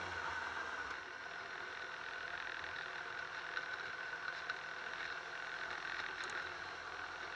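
Sport motorcycle engine running at low revs while the bike rolls slowly, easing back to a steady idle about a second in.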